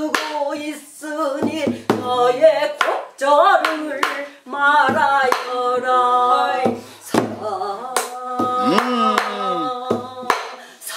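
A voice singing a Korean folk song (minyo) with wide vibrato and sliding pitch, over sharp strikes that keep time about once a second.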